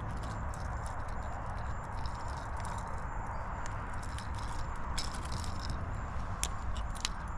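Scattered sharp clicks and rattles of metal fishing pliers and a popper lure's treble hooks as the hook is worked out of a small snook's mouth, over steady background noise.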